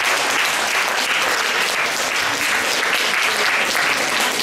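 Audience applauding: many people clapping steadily in a hall.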